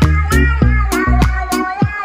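Background music with a steady beat, drums and bass, under a long held, wavering high note.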